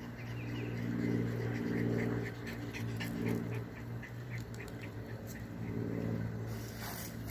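A dog panting quickly and rhythmically, about four breaths a second, over a steady low hum.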